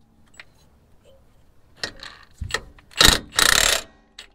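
Milwaukee cordless impact wrench driving the lower shock-mount nut in short bursts. The loudest run comes about three seconds in, after a few small clicks of the socket and wrench being fitted.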